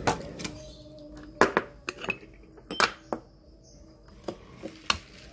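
Parts of a Bialetti Alpina moka pot clinking and knocking as the funnel filter basket is handled and set into the pot's water chamber. The sound is an irregular string of short, sharp metal clinks.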